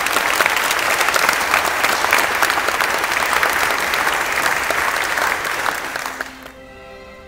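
Church congregation applauding: dense, loud clapping that dies away about six seconds in. Quieter music with held notes takes over at the end.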